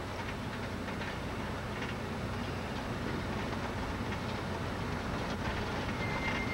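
Steady rumble of a vehicle driving slowly along a dirt road, with light clicking and rattling throughout. A brief high tone sounds about six seconds in.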